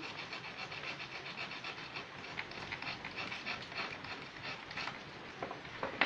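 Metal file rasping along a multitool's knife blade in quick, light strokes, sharpening its blunt edge, with a few sharper clicks near the end as the tool is handled.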